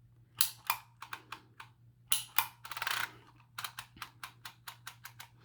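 Handheld Dymo embossing label maker being worked: sharp plastic clicks, some single or in pairs and some in quick runs, as the letter wheel is dialled round and the grip squeezed to punch letters into the tape.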